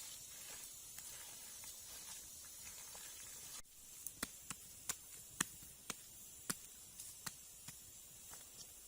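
Steady high hiss of outdoor background; after an abrupt cut about three and a half seconds in, a string of sharp, irregular knocks or taps, roughly two a second.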